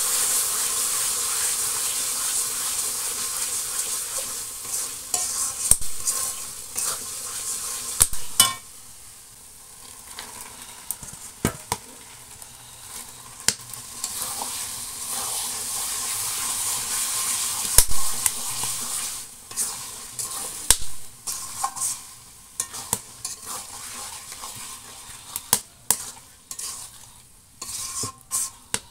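Spiced onion masala and mutton pieces sizzling in hot oil in a steel karai while a metal spatula stirs and scrapes the pan. The sizzle drops off about a third of the way in and rises again around the middle. In the last third, sharp spatula scrapes and knocks against the metal take over.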